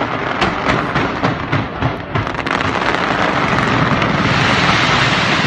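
Fireworks going off: rapid bangs and crackles in quick succession for about two seconds, then merging into a continuous dense din.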